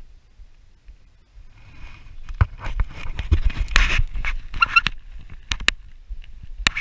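Rustling and handling noise close to the microphone, starting about two seconds in, with a quick run of sharp clicks and knocks and a brief high chirp a little past the middle.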